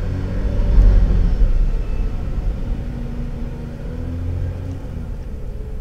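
A low rumble, swelling about a second in and again briefly near the end, then fading.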